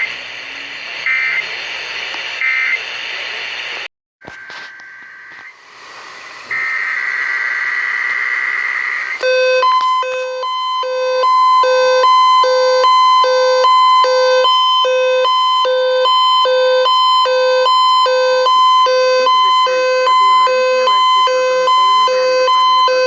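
Emergency Alert System signalling over broadcast radio. Three short high data bursts come about a second apart, then a brief dropout and a longer steady high data tone. From about nine seconds in, a loud alert tone pulses roughly once a second over a steady tone.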